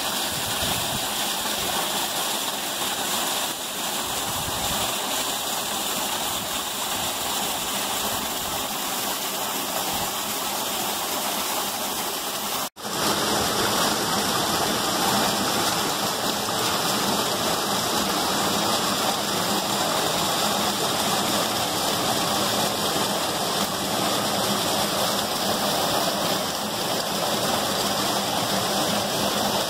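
A small creek cascading over and between boulders, a steady rush of water. It breaks off for an instant about halfway through, and after that it is a little louder.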